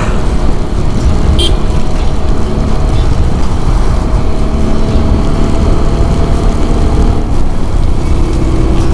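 Heavy wind rush on the rider's microphone while riding a TVS Apache RTR 200 4V motorcycle, its single-cylinder engine running steadily underneath.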